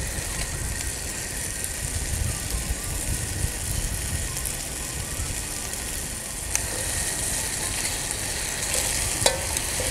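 Chicken, shiitake and bamboo shoot stir-fry sizzling in a carbon-steel wok over an outdoor gas wok burner, which runs with a steady low rumble. A few sharp metal clicks of the ladle against the wok in the second half.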